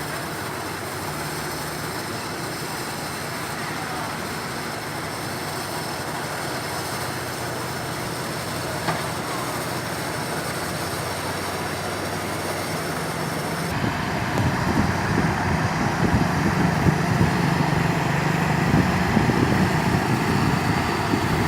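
Heavy diesel engines of road-paving equipment running steadily. About two-thirds of the way in the sound changes abruptly to a louder, rougher low rumble with a steady drone.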